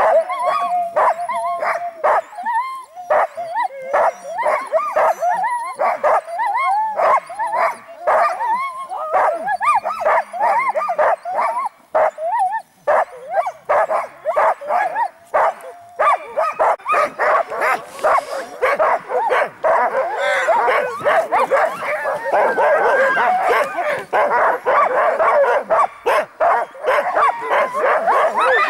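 A harnessed sled-dog team of huskies barking over and over as they wait to run. From about halfway the barking thickens into a continuous chorus of many dogs at once.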